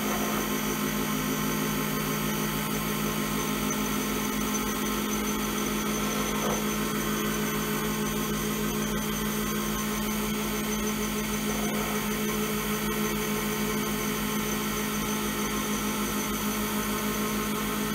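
Lathe motor running with a steady hum, spinning an Alumilite resin pen blank as the lightest possible cuts are taken in it.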